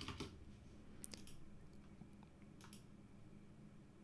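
Quiet clicks of a computer mouse button, each click a quick press and release, heard around the start, about a second in and near three seconds. Each right-button click fires a keyboard macro that types "Hello".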